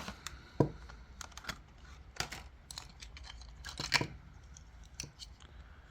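Packaging of a small motorcycle lock being torn open and handled: scattered rustles, tearing and sharp clicks, with a louder click about half a second in and bursts around two and four seconds in.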